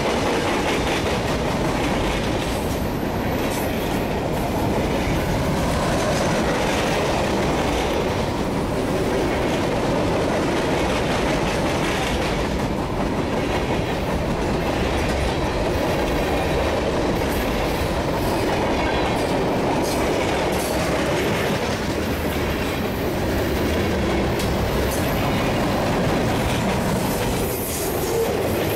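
Freight train cars rolling steadily past at close range: a continuous rumble of steel wheels on the rails with clickety-clack as the trucks cross the rail joints.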